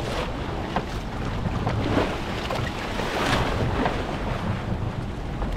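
Small fishing boat under way on open sea: a steady rumble with heavy wind buffeting the microphone and water splashing and rushing along the hull, with a few louder splashes.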